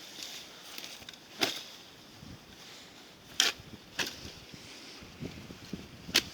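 Campfire popping: four sharp cracks spread over a few seconds, over a faint steady hiss.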